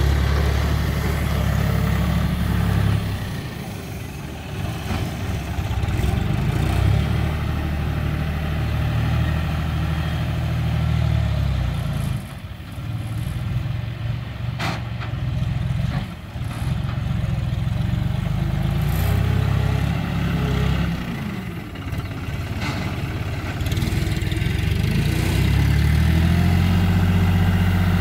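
John Deere tractor's diesel engine running as it drives and works a front loader, its speed rising and easing off several times with short drops in loudness.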